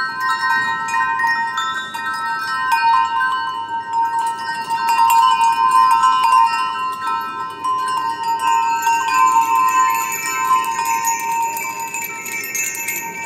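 Background music of ringing chimes and bells: overlapping sustained tones, with higher notes joining in past the middle.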